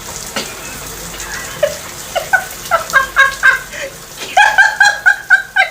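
A run of short, high squeaky calls from a small animal, a few a second at first and then faster and louder near the end, over a steady hiss like running water.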